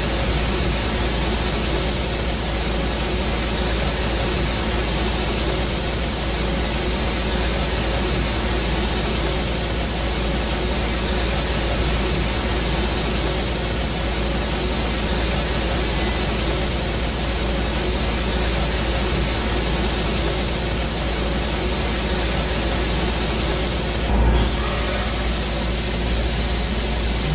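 Milling machine side-milling metal, a steady hiss with a faint hum under it and a brief change about three-quarters of the way through.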